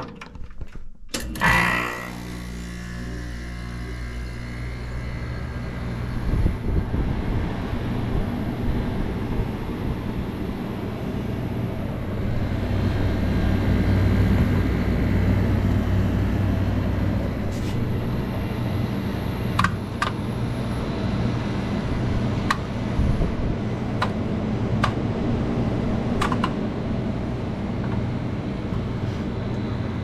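1989 Quietmaster window air conditioner switching on with a click about a second in and starting up: a machine hum that builds over the first dozen seconds, then runs steadily. A few sharp ticks come in the second half.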